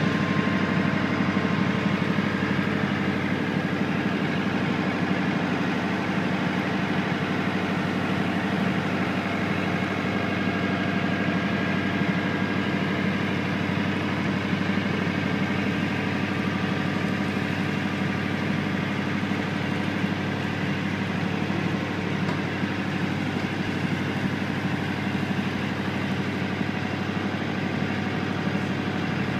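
Boat engine running steadily at low speed, an even hum with no change in pitch.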